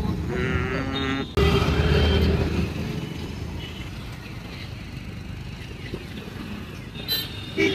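Road traffic: engines of passing auto-rickshaws and motorcycles. There is a louder pass about a second and a half in, then a steady traffic hum, with short tonal bursts near the end.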